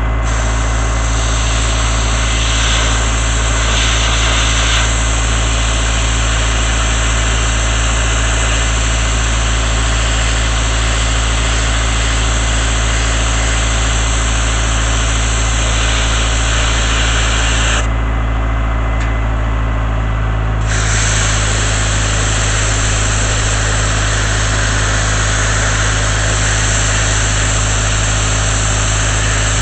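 Engine-driven air compressor running steadily under load, with the loud hiss of a sandblasting nozzle over it. The blasting hiss cuts off about 18 seconds in and starts again about three seconds later, while the engine drone carries on.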